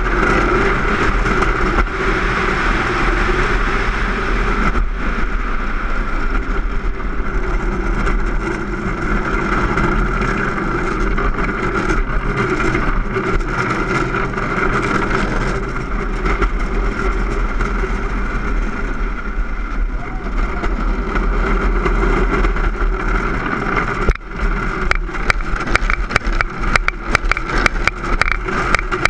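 Soap box cart rolling fast downhill on asphalt: a steady rumble and hiss of hard wheels on the road with wind noise. Near the end comes a rapid run of sharp knocks and jolts as the cart rattles over the surface.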